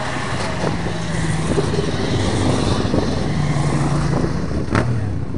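Racing motorcycle engines running in the distance as a group of bikes comes up the track, with a steady low engine drone and a single sharp click near the end.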